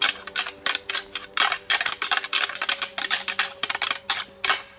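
Antlers clattering together in quick, irregular strikes: rattling, the sound of bucks sparring that hunters imitate to call bucks in. It stops abruptly near the end.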